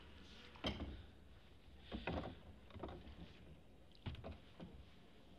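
Wooden oar of a Venetian rowing boat knocking in its forcola oarlock through the strokes: several short, irregularly spaced knocks over a low steady background.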